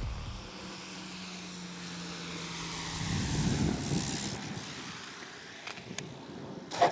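Electric 35% Krill Extra 330SC RC plane landing: a faint steady hum from its motor and propeller at low throttle, then a rougher rumble about three seconds in as the wheels touch down and roll along the asphalt runway. A sharp click near the end.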